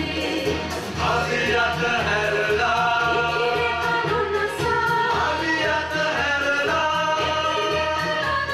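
A song: voices singing long held notes over a steady low beat, with the singing coming in strongly about a second in.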